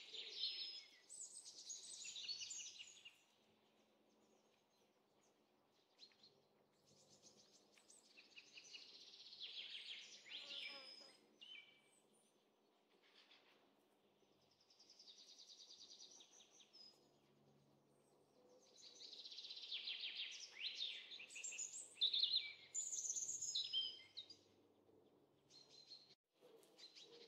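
Small birds chirping and trilling in several short bouts, the loudest near the end.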